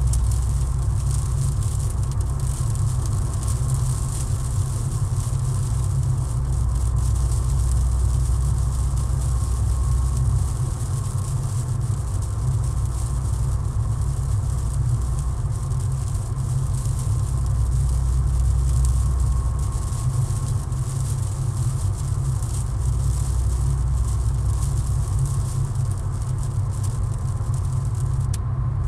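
Inside a car cruising on a wet highway in the rain: a steady low rumble of the engine and road, with an even hiss of rain and tyres on the wet road over it.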